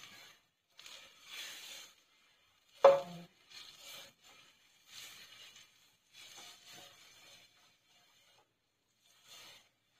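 Hot liquid sloshing and hissing in a stainless steel frying pan as it is swirled over an electric burner, coming in short bursts every second or so. One sharp metallic knock about three seconds in.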